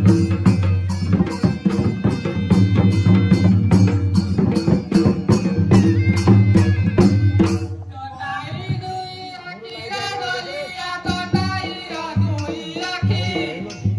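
Danda Nata folk music: drums beat a fast, steady rhythm over a held low tone, then about eight seconds in the drumming drops back and singing takes over.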